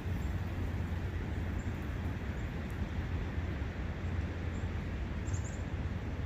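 Steady rushing of a brook with a deep low rumble underneath, and a few faint high bird chirps, including a short cluster about five seconds in.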